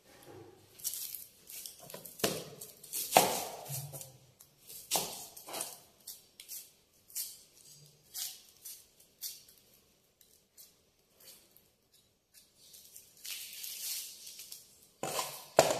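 Dry, papery onion skins crackling and rustling as small red onions are peeled with a knife, in short irregular bursts, with a few sharper knocks of the knife or onion against a plastic cutting board.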